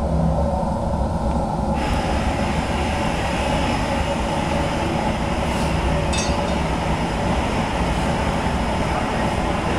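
Steady roar of a glass hot shop's gas-fired furnaces and burners during glass casting, with a hiss that grows louder about two seconds in.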